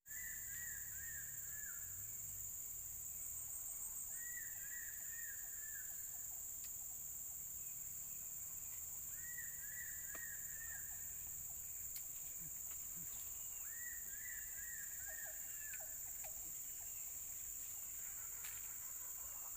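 Outdoor natural ambience: a steady high-pitched insect drone from crickets or cicadas, with a bird repeating a short call of several quick notes about every five seconds, four times.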